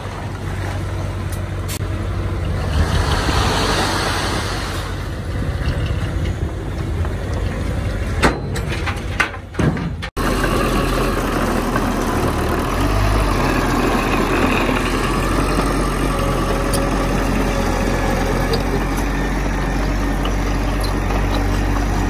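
Heavy diesel earthmoving machinery running, with a few sharp knocks and clatters about eight to ten seconds in. The sound breaks off suddenly at about ten seconds, then carries on as a steadier engine with a low hum.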